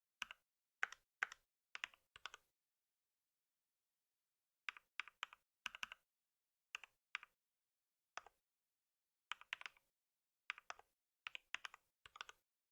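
Computer keyboard typing in short bursts of keystrokes, with a pause of about two seconds after the first few strokes.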